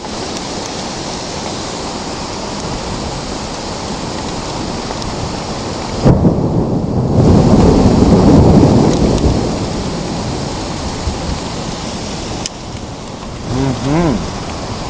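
Hard rain pouring steadily. About six seconds in, a thunderclap breaks suddenly and rolls as a deep rumble for about four seconds before fading back under the rain.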